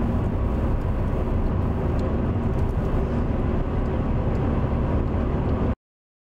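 Car interior noise while driving: a steady low rumble of engine and road that cuts off suddenly near the end.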